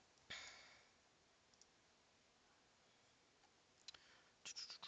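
Near silence: a soft exhale, then a few faint mouse clicks near the end.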